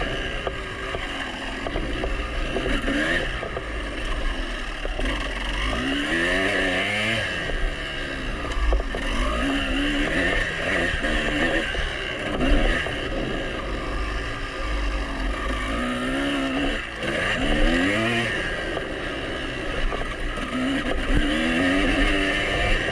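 2003 Honda CR250's two-stroke single-cylinder engine, ridden hard around a motocross track, revving up and dropping back again and again as the throttle is opened and shut. A steady low rumble of wind runs under it.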